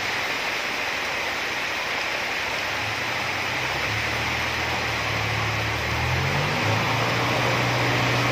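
Heavy rain hissing steadily, with the Isuzu Elf dump truck's diesel engine droning underneath from about three seconds in. The engine note steps up about two-thirds of the way through as the hydraulic hoist lifts the loaded tipper bed.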